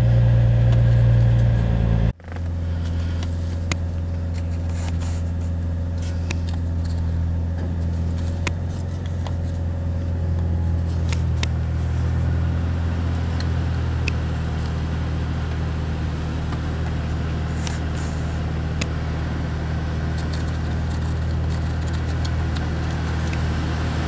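Car engine idling steadily, a low even hum that cuts out for a moment about two seconds in, with a few faint clicks.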